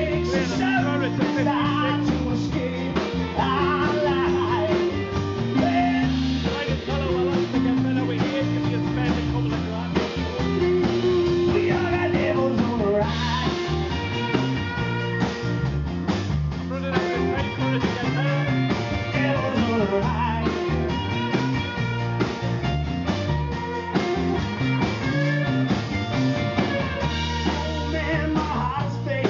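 Live band playing a blues-rock song: a man singing lead over strummed acoustic guitar, electric guitars and drums.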